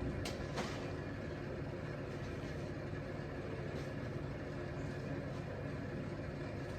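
A steady low mechanical hum, like a motor running, with two sharp clicks in the first second.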